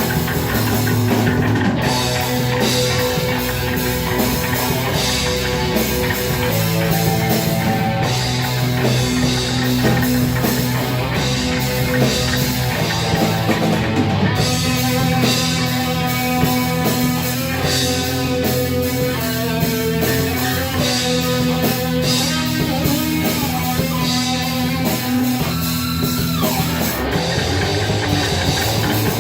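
Metal band playing: electric guitar chords and bass over a drum kit with constant cymbals, in a loud, dense grind-metal mix.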